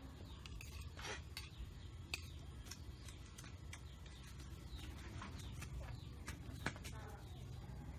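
Metal spoon clicking and scraping against a plate now and then while eating, about five sharp clicks, over a steady low hum.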